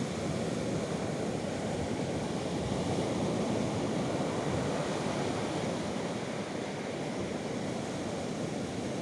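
Baltic Sea surf washing and breaking without pause, a steady rushing that swells a little about three seconds in and eases off later.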